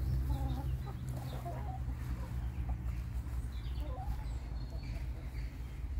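Laying hens clucking in a few short, scattered calls over a steady low rumble.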